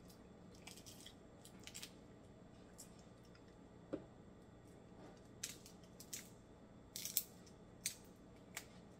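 Snow crab shell being picked apart by hand: scattered short, sharp cracks and clicks as pieces of shell are snapped and pulled from the meat, the loudest about seven seconds in.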